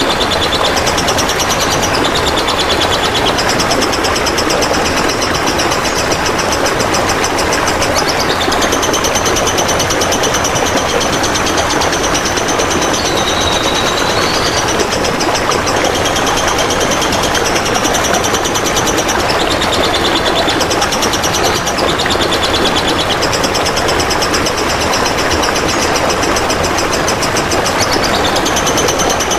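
Steady, loud trickling water running throughout, with a high, fast-pulsed trill over it in long phrases that break off and restart, dipping in pitch now and then. This is a songbird-training recording of birdsong over flowing water.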